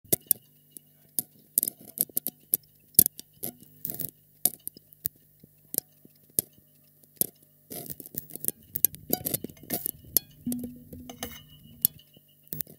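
Experimental improvised sound piece: irregular sharp clicks and taps over a faint steady low hum, thickening into a denser, rougher clatter about eight seconds in.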